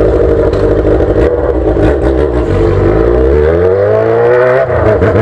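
Yamaha XJ6 inline-four engine running through a straight-through open exhaust with no muffler, under way. The note holds steady, then climbs as the bike accelerates, and drops sharply near the end.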